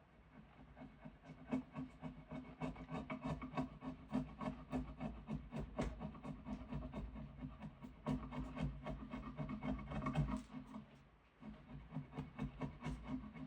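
Hand-scraping a diamond willow stick in quick repeated strokes, several a second, with a short break about eleven seconds in.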